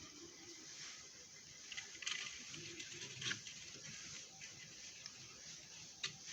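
Faint rustling with a few light clicks and taps scattered through it, a handling noise.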